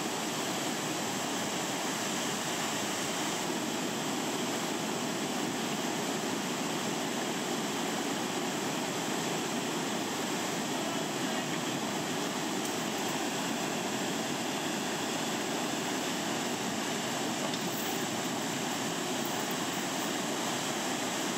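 Steady rush of whitewater pouring over a small river waterfall and through the rapids below it.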